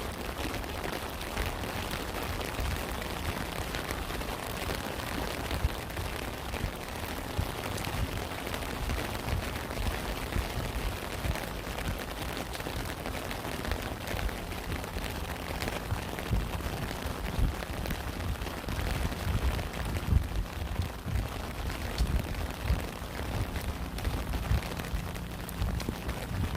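Steady rain falling, with many separate drop hits ticking over the hiss and irregular dull low thumps underneath.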